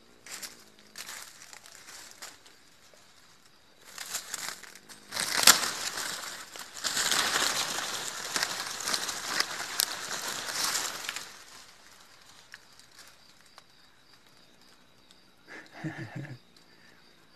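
Dry banana leaves and brush crackling and rustling as they are pushed through, light at first, then a loud burst lasting several seconds in the middle.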